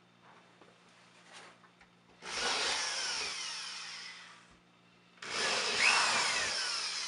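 Power drill with a 1/4-inch bit boring into drywall for anchor holes, in two bursts of about two seconds each, with a whine falling in pitch.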